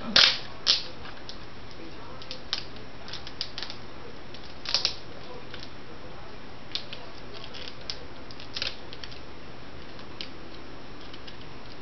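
Scattered small clicks and taps of hands working a laptop LCD panel loose and undoing its taped-down locking display connector. The clicks are irregular and sparse, with a few louder ones right at the start and about five seconds in.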